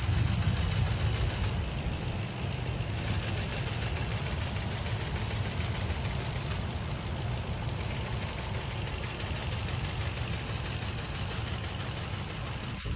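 Toyota Land Cruiser engine running steadily at idle, a low engine note under an even rushing noise. This is the intake sound that is taken for a problem.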